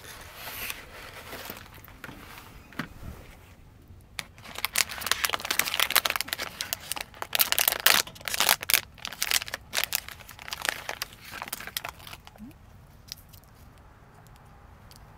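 Crinkling and rustling of something handled by hand, in irregular bursts that grow loud about four seconds in and die away after about twelve seconds.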